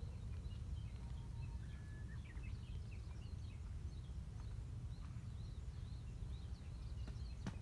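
Small birds chirping with many short, quick calls over a steady low outdoor rumble.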